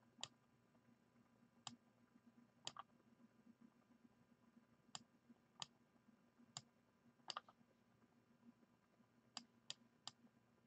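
Faint, irregular single clicks of a computer mouse, about ten of them, some in quick pairs, over a faint low hum in an otherwise near-silent room.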